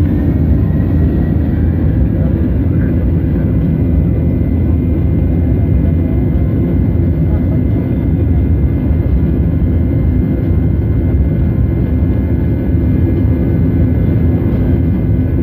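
Jet airliner's engines running at steady takeoff power: a loud, even rumble with a thin, high engine whine over it.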